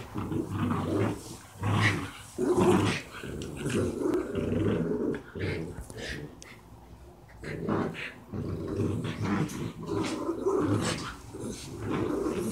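A pit bull puppy and a schnauzer play-fighting, with rough, rumbling play growls. The growling eases off for a couple of seconds midway, then picks up again.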